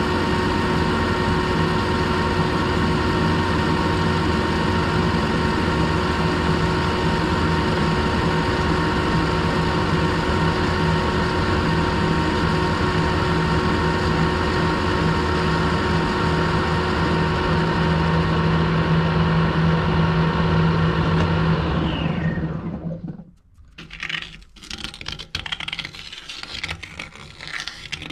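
Metal lathe running with a steady gear whine and hum while facing a steel plate held in a four-jaw chuck. About 22 seconds in the lathe is switched off and the pitch falls as the chuck spins down, followed by light knocks and rubbing as the stopped chuck and workpiece are handled.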